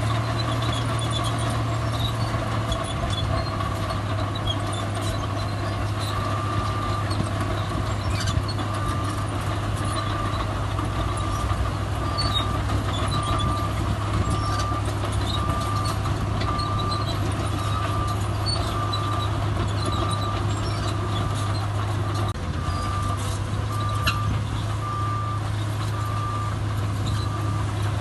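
Heavy diesel earthmoving machinery running steadily. From about six seconds in, a reversing alarm beeps about once a second.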